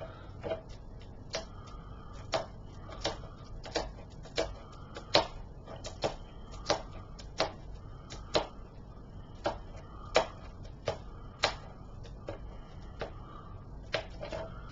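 A series of sharp clicks or snaps at an uneven pace, roughly one or two a second, from a mailed DVD package being opened by hand.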